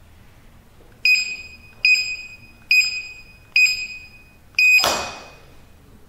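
Built-in buzzer of a keypad access control unit beeping five times as keys are pressed: short high-pitched beeps, each with a light click at its start, a little under a second apart. The last beep is followed by a louder burst of noise that fades away over about a second.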